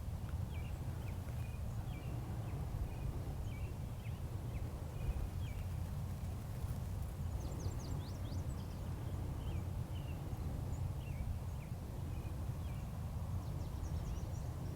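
Outdoor ambience of small birds chirping: short, scattered chirps throughout, with a quick run of higher calls about seven to eight seconds in, over a steady low rumble.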